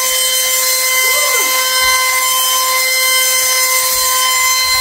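Sharper Image Gravity Rover wall-climbing car's suction fan running, a steady high whine over a rush of air that holds the car against the wall as it drives.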